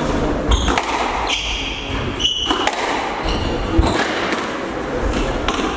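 Squash rally: the ball struck by rackets and hitting the court walls in sharp knocks, with short high squeaks of the players' shoes on the wooden floor, in a large echoing hall.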